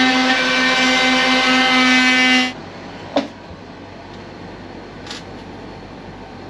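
A motor running with a steady pitched hum, which cuts off suddenly about two and a half seconds in. After it come faint room noise and a couple of light knocks.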